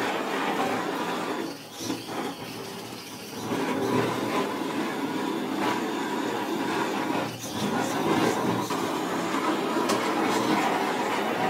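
Handheld gas torch burning with a steady rushing noise. It is quieter for a stretch about two to three seconds in and dips briefly about seven seconds in.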